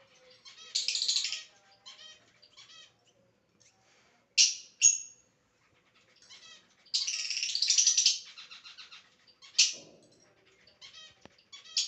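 Lovebird chirping and chattering in high-pitched bursts: a short burst about a second in, two sharp chirps a little before halfway, a longer run of chatter past halfway, another sharp chirp, and a fresh burst at the very end.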